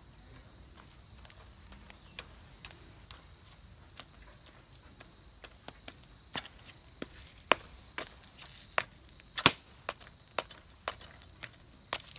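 A kitchen knife cutting into a whole chicken on a wire grill rack over charcoal: irregular sharp clicks as the blade strikes the metal rack, coming more often and louder in the second half.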